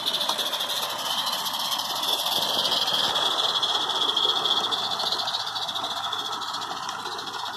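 Roundhouse Palmerston live-steam garden-railway locomotive running under steam: a steady hiss made of fast, even exhaust beats, a little louder in the middle as it passes and easing off near the end.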